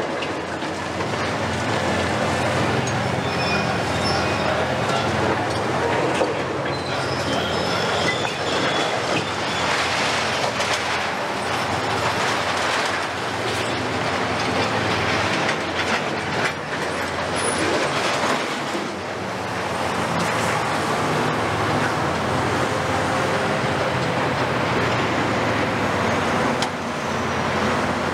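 Demolition excavators tearing down a building: diesel engines and hydraulics running steadily under a continuous din of concrete and debris crashing, grinding and scraping, with high-pitched squeals a few seconds in.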